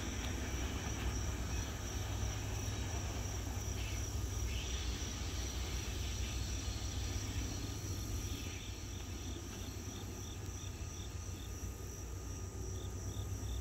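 Insects chirping, with a steady high trill joined about two-thirds of the way in by a rhythmic chirp about two or three times a second. Beneath them runs a low rumble from the receding oil train.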